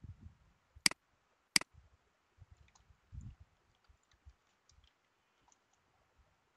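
Two sharp computer-mouse clicks about a second in, then faint, quick keyboard taps as a password is typed, with a few soft low thumps.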